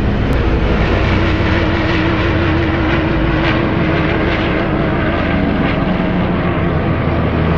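A formation of propeller-driven warbirds and small jets flying over, giving a loud, steady drone of aircraft engines and propellers.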